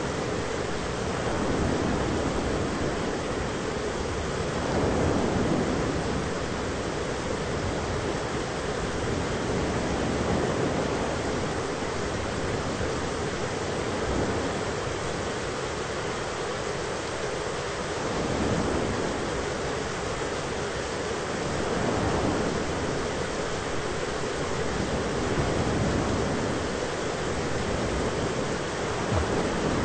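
Thunderstorm ambience for sleep: a continuous rush of rain-like noise that swells every four seconds or so, with no sharp thunderclaps.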